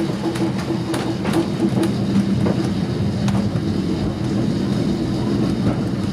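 A 1902 Great Orme Tramway cable-hauled tram car running along its track, heard from inside the car: a steady hum and rumble with scattered, irregular clicks and rattles.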